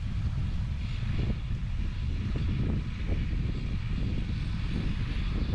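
Strong wind buffeting the microphone in a steady low rumble, with a rushing hiss higher up and a faint steady hum behind it.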